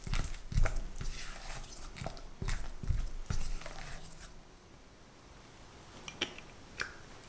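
Silicone spatula stirring and scraping a soft cream cheese mixture against a glass bowl, in several strokes over the first four seconds. Near the end come two short clicks as sour cream is scraped from a small tub into the bowl.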